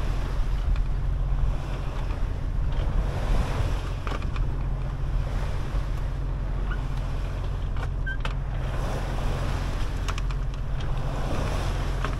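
Wind and sea noise aboard a sailing yacht under way: wind buffeting the microphone over a steady low rumble, with water washing past the hull.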